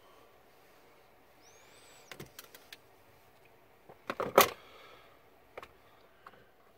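Hand tools and wiring being handled on a wooden shelf: scattered small clicks, then a louder clatter of several quick knocks about four seconds in, and a couple more clicks near the end.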